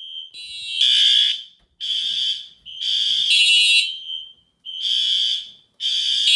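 Fire alarm horns of a test alarm system sounding: loud blasts about a second long repeat roughly once a second over a fainter steady tone.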